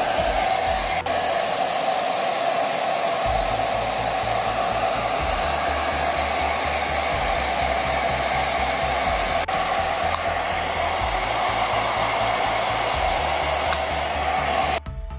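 Torion Pro handheld hair dryer running steadily: a rush of air with one steady tone over it. It cuts off suddenly near the end.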